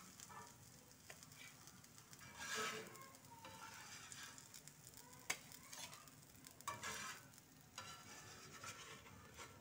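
Flat metal spatula scraping across an iron tawa as fried kababs are slid off it, a few short scrapes and one sharp click, over a faint sizzle of the shallow-frying oil.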